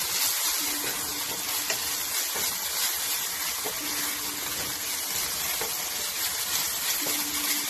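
Ketchup and chili sauce with garlic, green chilies and curry leaves sizzling steadily in a little hot oil in a nonstick frying pan, stirred with a wooden spatula as the sauce is cooked down dry.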